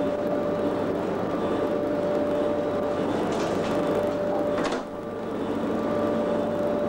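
Cab interior of British Rail Class 87 electric locomotive 87033 running along the line: a steady whine over the continuous rumble and clatter of the wheels on the rails. Just before five seconds in there is a sharp noise and a short dip in the level, which then builds back up.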